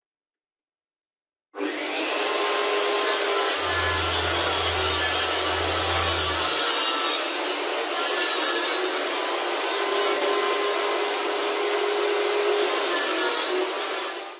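Table saw running and cutting through a board pushed on a crosscut sled, a loud, steady rasping noise that starts abruptly about a second and a half in.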